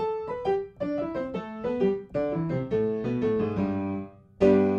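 Background piano music: a quick run of notes falling in pitch, ending on a loud chord that rings out near the end.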